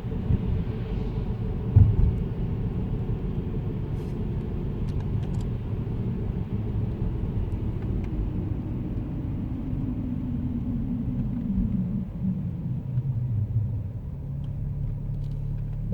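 BMW 335xi E92 slowing down: a steady road rumble with a drone that falls steadily in pitch as the car loses speed. The owner puts this noise down to the tyres. A short thump comes about two seconds in.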